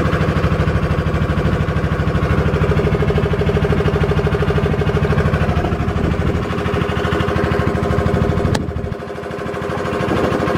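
Small wooden river boat's engine running steadily with a fast, even chugging pulse. A sharp click near the end, after which the engine is briefly quieter before coming back up.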